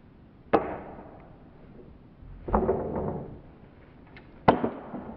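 Three sharp knocks about two seconds apart: a hard bike helmet being flicked up with a garden spade and coming down.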